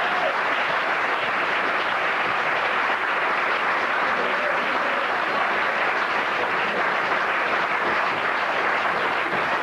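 Live theatre audience applauding: steady, dense clapping from many hands.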